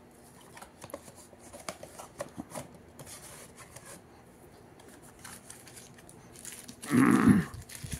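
Handling of a cardboard box and paper packaging: light rustles, taps and scrapes as the box flaps are opened and a paper-wrapped part is lifted out. About seven seconds in there is a brief, louder voiced sound like a short murmur.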